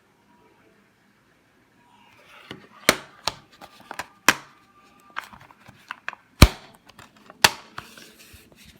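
Plastic DVD cases being handled: a string of sharp clicks and knocks that starts about two and a half seconds in, the loudest about six and a half seconds in.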